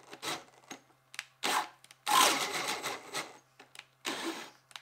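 Bosch 18-volt brushless hammer drill boring a 1.5-inch bit into thick pine, running in short stop-start bursts rather than steadily. The longest burst comes about two seconds in. The drill is cutting out under the heavy load and soon shuts off with a red warning light.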